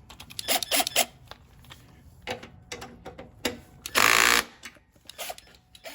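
A cordless drill with a socket runs in one short burst of about half a second, backing out a carburetor mounting bolt. Scattered clicks and knocks of the tool and metal parts come before and after it.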